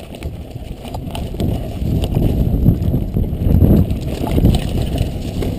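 A mountain bike rattling and rumbling over a rough dirt trail at speed, with wind buffeting the microphone. It grows louder about two seconds in.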